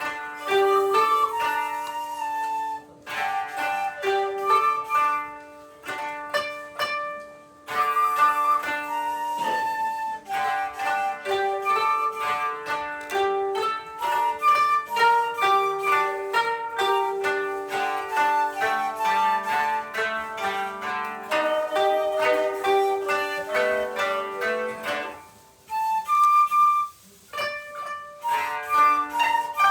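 Koto ensemble playing a quick run of plucked notes, with a shakuhachi holding longer notes above and among them. The music drops out briefly a few times between phrases.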